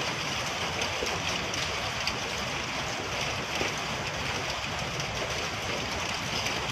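Steady rain falling, an even hiss. The rain is mixed with small falling volcanic stones.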